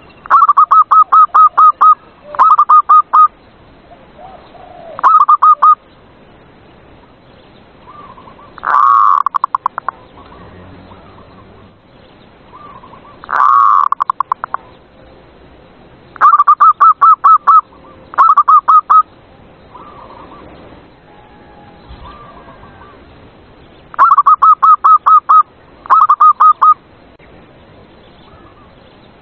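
Zebra dove (perkutut) song: loud phrases of quick, evenly pulsed coos at about six notes a second, with a few longer single coos in between, repeated every few seconds. It is a recorded song played as a lure to prompt caged doves to sing.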